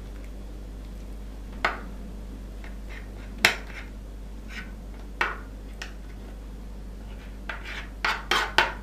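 Metal teaspoon clicking and tapping against a wooden cutting board and the sugar apple's rind while scooping out its pulp and seeds. The taps are scattered, the sharpest about three and a half seconds in, and come in a quick run near the end, over a steady low hum.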